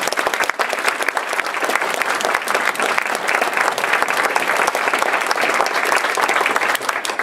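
An audience applauding steadily, many hands clapping at once, welcoming a guest speaker to the podium.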